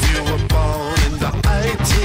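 Background music: an upbeat pop song with a steady beat and a singing voice.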